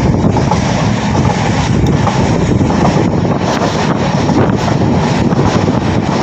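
Passenger express train running at speed: steady wheel-on-rail rumble with loud wind rushing over the microphone.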